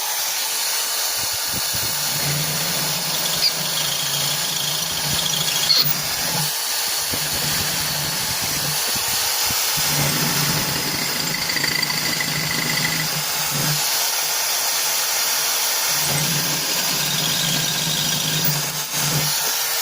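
Old Makita corded electric drill running continuously while an 8 mm bit cuts through a steel plate, with brief squealing tones from the bit in the metal. The motor's low hum fades and returns every few seconds as the feed pressure changes.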